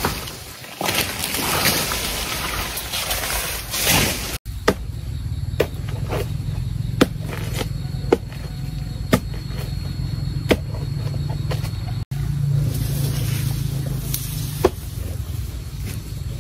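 A motor running with a steady low hum and sharp clicks about once a second, after a harsh rushing noise in the first four seconds that cuts off suddenly.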